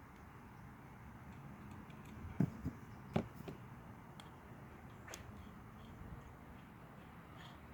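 Light clicks and taps of small metal parts and hand tools as reed-valve parts are screwed onto an outboard's reed block, with three sharper knocks about two and a half to three seconds in over a low steady background hum.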